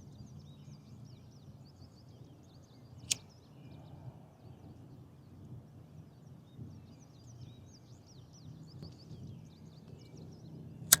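Quiet waterside dusk ambience: many faint, short high chirps of small wildlife over a low steady rumble, with two sharp pops, one about three seconds in and a louder one near the end.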